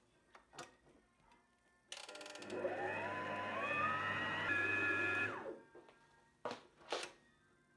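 A small electric motor spins up, runs for about three seconds with one step up in speed, then winds down. Two sharp clicks follow near the end.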